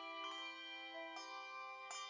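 Bells playing a slow tune: about three notes struck in turn, each ringing on under the next.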